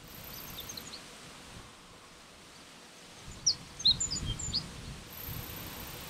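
Ochre-rumped bunting singing: a faint short phrase of high notes just after the start, then a louder phrase of quick, sharp high notes about halfway through.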